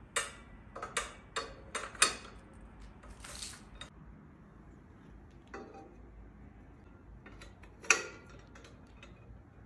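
Metal rods and wire frame of an IKEA MULIG drying rack clinking and clacking together as the parts are fitted: a quick run of sharp knocks in the first two seconds, a short scrape, then another cluster of clicks near the end with one loud clack.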